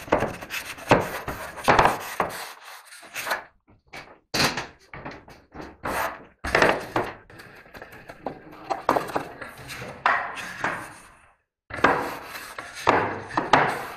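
A wide spatula pushed in repeated strokes over fiberglass wall canvas laid on wet glue on a drywall window reveal, smoothing it flat. Each pass gives a scraping rub. The strokes come irregularly, with a short pause about three-quarters of the way through.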